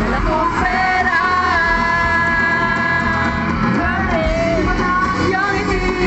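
Live band music with a singer holding one long note for a couple of seconds in the middle, over steady drums and bass.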